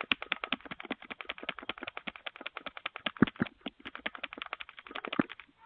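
Rapid rapping on a front door, about nine sharp knocks a second, with a few heavier thuds about three seconds in and near the end, heard through a doorbell camera's microphone.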